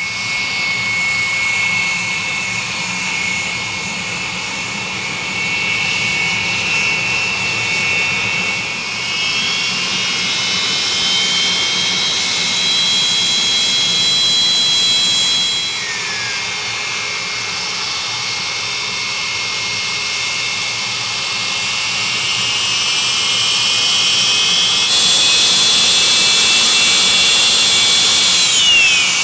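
Aermacchi MB-339 jet trainers' Rolls-Royce Viper turbojets running as the jets taxi past: a loud, steady high whine over a hissing rush. The whine glides upward about ten seconds in and again a little after twenty seconds, and drops away just before the end.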